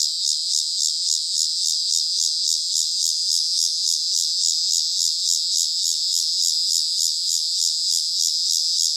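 Cicada singing: a loud, continuous high-pitched buzz with an even, rapid pulsing.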